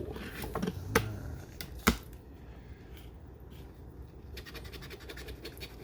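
Scratching the latex coating off a lottery scratch-off ticket: scraping strokes, two sharp clicks about one and two seconds in, and a quick run of short strokes near the end.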